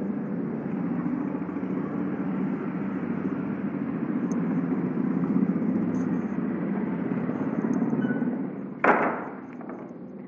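Cloth duster wiping a chalkboard: a steady scrubbing rub that stops about nine seconds in, followed by a single thump.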